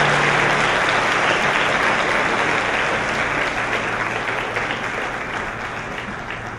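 Theatre audience applauding, the clapping slowly dying away.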